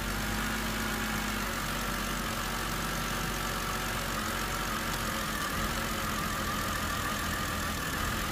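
BMW N52 2.5-litre inline-six idling steadily during a cylinder balance test, with its ignition coil connectors being unplugged one at a time to find the misfiring cylinder.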